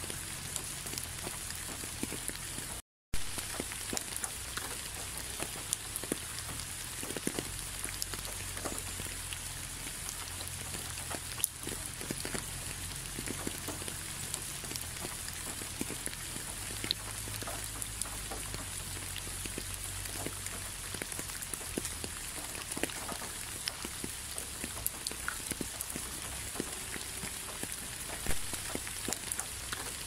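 Steady rain falling on a surface, an even hiss dotted with many separate drop ticks. The sound cuts out for a split second about three seconds in.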